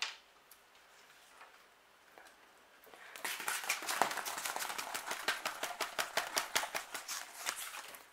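Orchid bark potting mix being dug through and pulled apart by hand and tool: a rapid run of small crackles and clicks that starts about three seconds in and stops just before the end.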